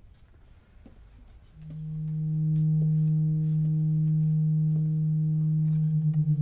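Low sustained drone from a film score, swelling in about a second and a half in and then holding steady, with fainter overtones above it. Near the end a second, lower note joins and the sound starts to waver in an even pulse.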